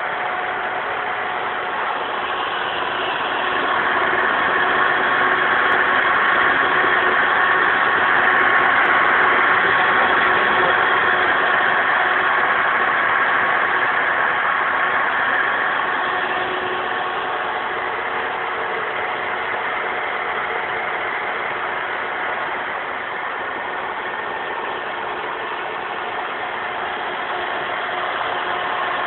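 Small electric motors and gearbox of a homemade RC combine harvester running, a steady whirring whine. It gets louder about four seconds in and eases back again after about twelve seconds.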